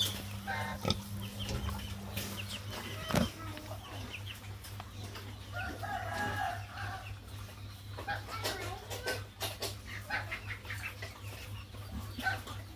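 Chickens clucking, with one longer pitched call about six seconds in, over a steady low hum.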